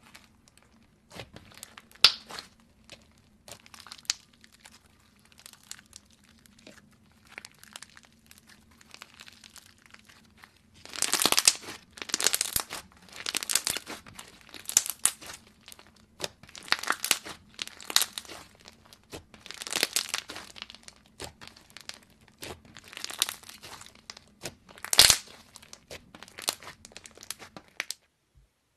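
Thick white slime squeezed, pressed and pulled apart by hand, giving off crinkly crackling and tearing sounds in irregular bursts, sparse at first and louder and more frequent from about halfway through.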